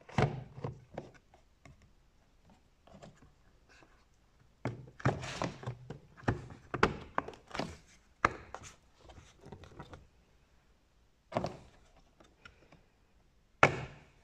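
Plastic air filter housing lid of a Renault Megane 4 1.5 dCi being handled and pressed into place: a run of short plastic clicks and knocks, with two sharper single knocks near the end.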